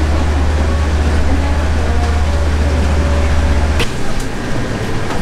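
Seafood-market background noise: a strong steady low hum with faint voices, the hum cutting off abruptly about four seconds in with a sharp knock.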